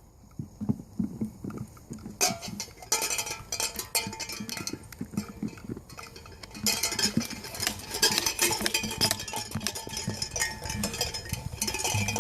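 Chocolate Labrador puppies playing: scuffling with many small clinks and clattering knocks. The activity grows busier about two seconds in and again about seven seconds in.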